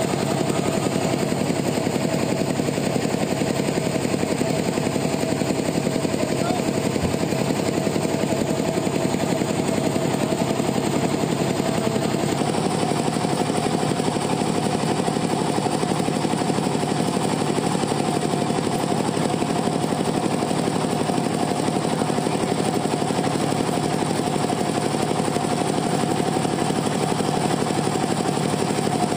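Two-stroke chainsaw engine running steadily at high speed while cutting through teak wood.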